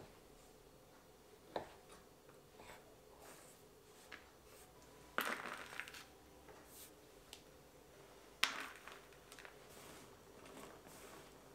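Knife cutting rolled homemade egg-pasta dough on a board by hand: a few scattered knocks of the blade, the two loudest followed by a short scrape or rustle of the dough strips.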